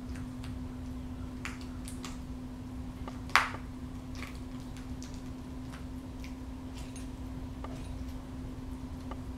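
Peregrine falcon tearing at quail meat with its beak: scattered soft clicks and wet pulls, with one sharper snap about three and a half seconds in, over a steady low hum.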